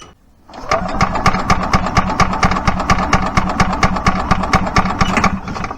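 Old gas Yamaha golf cart engine cranking over on its starter without firing, in rapid, even pulses that start about half a second in and stop near the end. The battery is a little weak.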